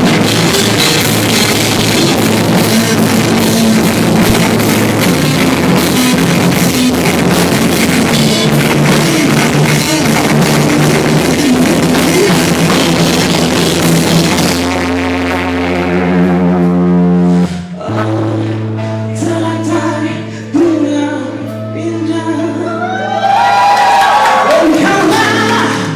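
Live rock band playing loudly with drums and guitar, then dropping about halfway through to a sparser passage of held notes with a voice singing.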